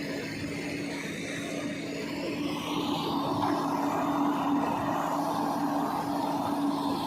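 Heavy vehicle diesel engine running steadily with a constant hum, growing slightly louder about three seconds in.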